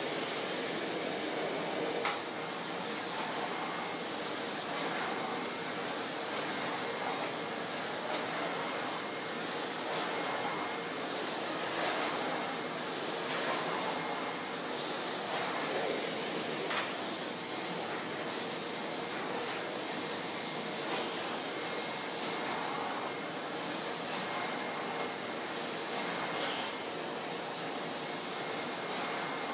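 1995 Hoover Alpina 2 cylinder vacuum cleaner running steadily: an even rush of air with a faint steady high whine, and a few small clicks.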